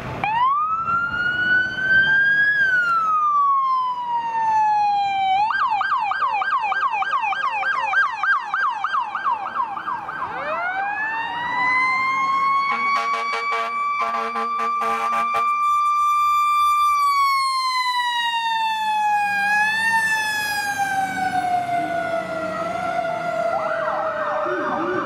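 Fire truck's electronic siren: a wail that rises and falls, switches to a fast yelp about five seconds in, returns to a long wail, and goes back into the yelp near the end. A brief low, buzzing horn sounds under the wail around the middle.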